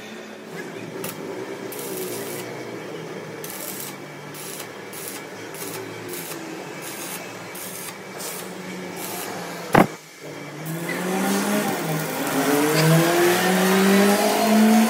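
Welding on a steel truck axle housing, crackling and hissing. There is a sharp click about ten seconds in, then louder hissing with a whine that rises and falls in pitch.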